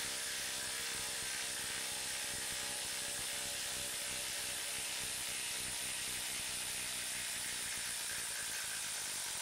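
DeWalt 20V brushless compact impact wrench (the 'Freak') running steadily in reverse, backing an 8-inch by 1/2-inch lag screw out of a wooden block.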